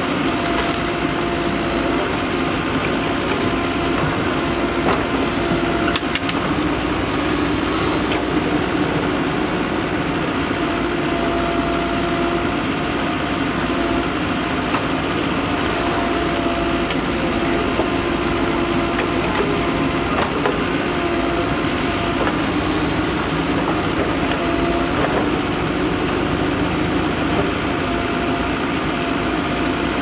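Mahindra Earthmaster SX90 backhoe loader's diesel engine running steadily while the backhoe arm digs, with a few brief knocks now and then.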